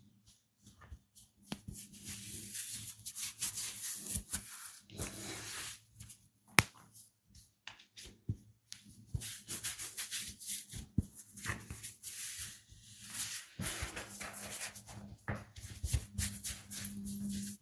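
Hands rubbing over skin and hair during a massage, in irregular stretches of rustling with small clicks, and one sharp loud click about six and a half seconds in.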